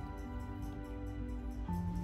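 Background music: held notes shifting from chord to chord over a light, even tick, with a new lower note coming in near the end.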